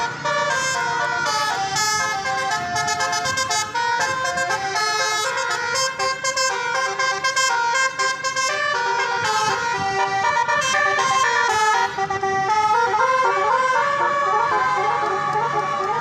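Tour bus's multi-tone telolet horn playing a melody, its notes stepping up and down in quick succession.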